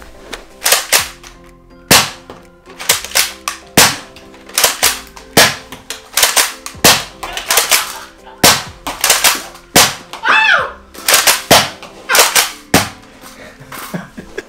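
Nerf Rival blasters firing foam balls back and forth: a string of sharp, irregular snaps and smacks, often two or three in quick succession, about two dozen in all.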